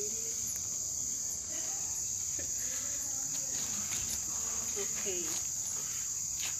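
Crickets chirping in a steady, high-pitched night chorus that does not let up.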